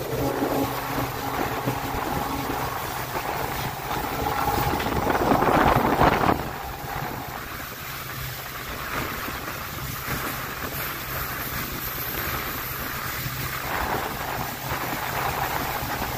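Express train running at speed: a steady rumble with a low hum, and wind buffeting the microphone, swelling to a louder rush about five seconds in.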